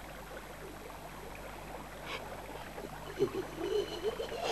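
Steady low hiss, with faint, wavering voice-like sounds in the last second or so.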